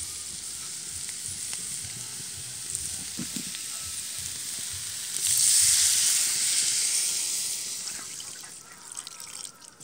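Onion-and-spice masala sizzling steadily as it fries in a hot kadai. About five seconds in, water poured into the hot pan sets off a much louder hiss that dies away over the next few seconds.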